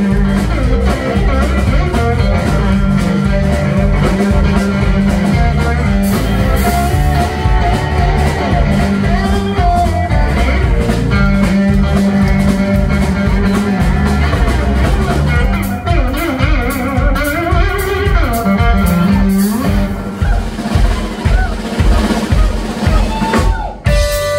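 Live blues band: an electric guitar with a box-shaped body plays a lead line over a steady drum-kit beat. About two-thirds of the way through, the guitar notes glide and bend in pitch.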